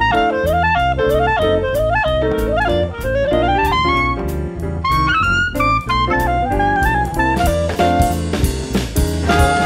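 Small jazz band playing, with a clarinet carrying a gliding melody over drums and low accompaniment. About two-thirds of the way through, trumpet and trombone come in and the band sound gets fuller.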